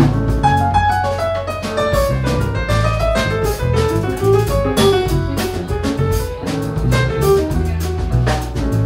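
Live jazz piano trio playing: piano melody in quick runs of notes, with a bass line underneath and drum kit keeping time on cymbals.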